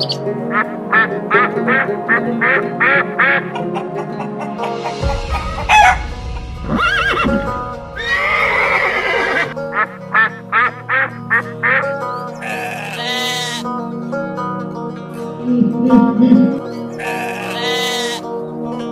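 Background music with animal calls laid over it. Near the start come about eight short, high bird calls in a row, a mallard duck calls in the middle, and near the end sheep and lambs bleat in long, wavering calls.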